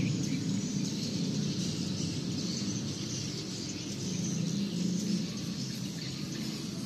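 Birds chirping over a steady low background rumble.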